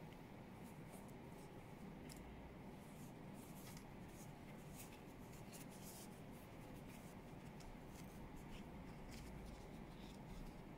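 Faint rustling and rubbing of felt and calico fabric as a small sewn toy is handled and its back opened, with scattered light scratchy clicks over a low room hum.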